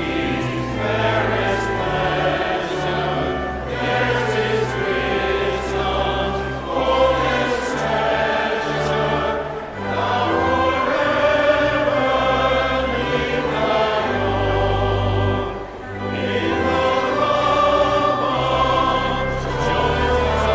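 Church choir singing with instrumental accompaniment that holds steady low bass notes, changing in steps. The music dips briefly twice, between phrases.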